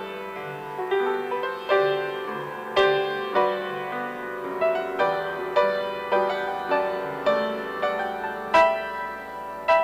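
Piano playing a slow, gentle piece, single notes and chords struck about every half second and left to ring, with a few louder accents.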